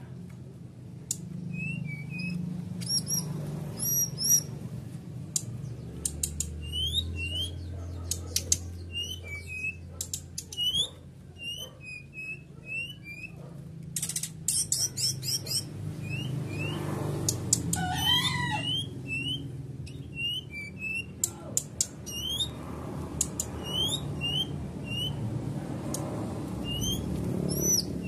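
A caged brown-chested jungle flycatcher (sikatan rimba dada coklat, SRDC) calling over and over in short, quick upward chirps, mixed with sharp clicks; it is a bird in strong breeding condition ('over birahi'). About two-thirds of the way through, a longer call with a wavering pitch stands out.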